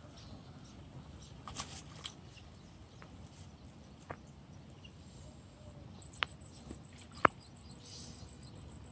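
Quiet outdoor background with a few isolated sharp clicks, the loudest about seven seconds in, and a fast, high, even ticking over the last three seconds.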